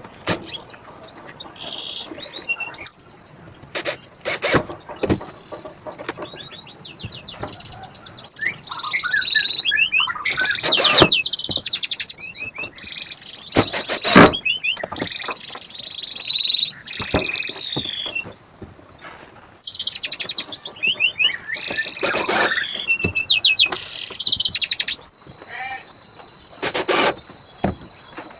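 Small birds chirping in repeated short trills over a steady high-pitched insect drone, with a few sharp clicks.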